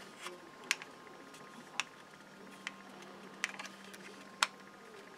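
Hard plastic model-kit parts clicking and tapping as they are handled, about eight short sharp clicks spread irregularly, the loudest about four and a half seconds in.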